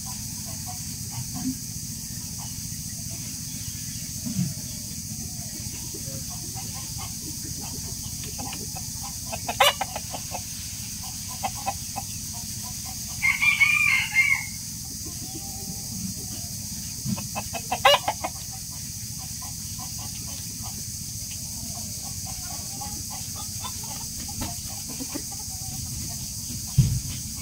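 Chickens clucking softly, with a rooster crowing once about halfway through, over a steady background hum. Two sharp clicks stand out, one before the crow and one after it.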